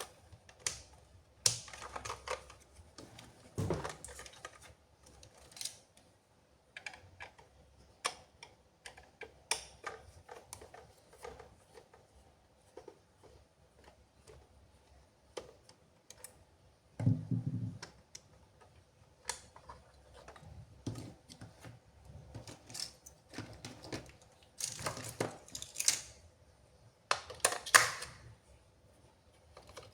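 Hands unboxing and handling plastic toys: irregular clicks and taps of plastic parts, with rustling of packaging near the end and a dull thump about halfway through.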